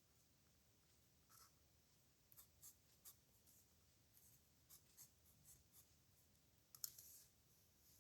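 Faint pen nib scratching on paper in short, separate strokes as characters are written, with a sharper stroke near the end.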